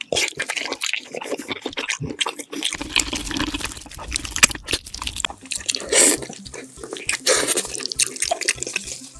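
Wet chewing and lip-smacking while eating braised beef feet: a dense, irregular run of sticky squelches and clicks.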